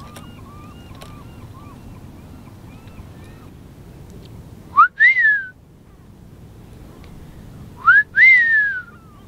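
Large gull calling twice, each call a short rising note followed by a longer wail that rises then falls, the second call longer than the first. Fainter repeated chirping bird calls, about two a second, come in the first few seconds.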